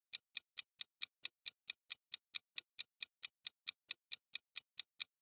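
Countdown-timer sound effect: a clock-like tick repeating steadily at about four to five sharp ticks a second.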